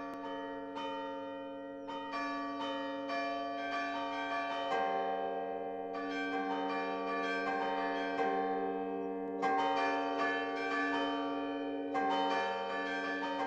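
Recorded traditional Swiss carillon music: several church bells struck in a quick, irregular tune, each note ringing on under the next.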